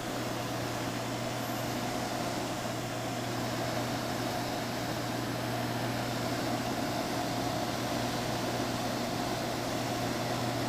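Electric motor of a saw-blade sharpening grinder switched on and running steadily: a constant hum with an even whir of air from its cooling fan, building a little over the first few seconds as it comes up to speed.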